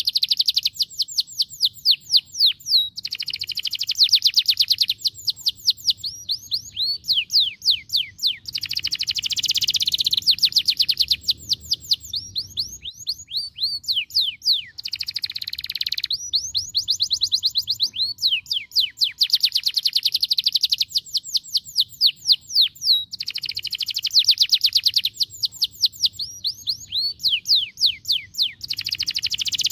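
Domestic canary singing continuously: long rolling phrases of fast, repeated down-slurred whistled notes, alternating with buzzier, denser trills.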